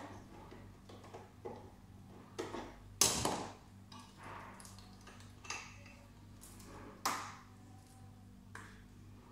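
Scattered clicks, taps and knocks of parts and fittings being handled inside a Soprano laser machine's cabinet, the loudest a short clatter about three seconds in. A steady low hum runs underneath.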